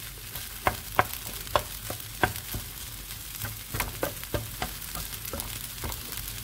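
Fried rice with zucchini sizzling in a frying pan while a utensil stirs it, knocking and scraping against the pan about a dozen times at an uneven pace.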